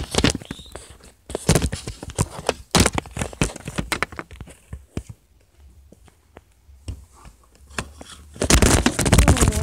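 Soft jiggly slime being squished and worked by hand, giving irregular crackling and popping clicks, with a louder stretch of rustling near the end.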